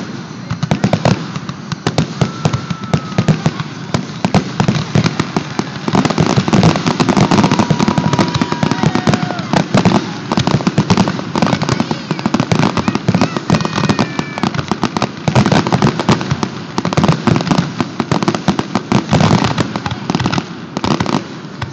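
Fireworks display: a continuous barrage of rapid bangs and crackling, growing denser about six seconds in.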